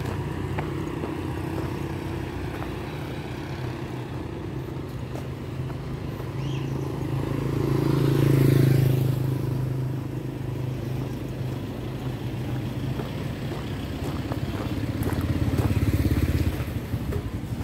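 Street traffic: motor scooters and cars running along the road, with a steady engine hum throughout. One vehicle passes close about eight seconds in, the loudest moment, and the engine noise swells again near the end.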